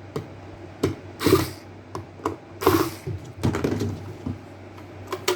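Electric kettle parts being handled and fitted by hand: a series of irregular clicks and knocks, the two loudest about a second and a half apart.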